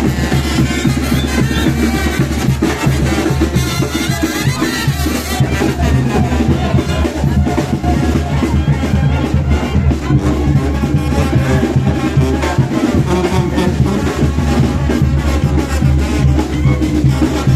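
Brass band playing lively dance music over a steady drum beat.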